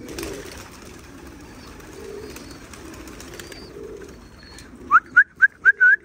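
A flock of domestic pigeons cooing in a low, steady murmur. About five seconds in, someone starts a quick run of short, sharp rising whistles, about four a second.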